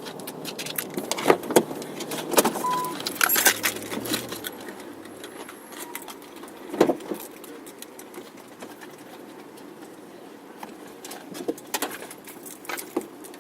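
Keys jangling, with scattered clicks and knocks of things being picked up and handled. There is a brief jingling cluster about three seconds in.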